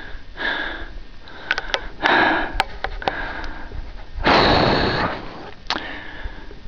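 Breathing and sniffing close to the microphone: four noisy breaths about a second and a half to two seconds apart, the loudest a little past the middle, with a few faint clicks between them.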